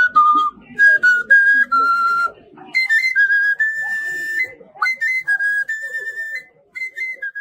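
Background music: a high, whistle-like melody moving note to note over soft accompaniment.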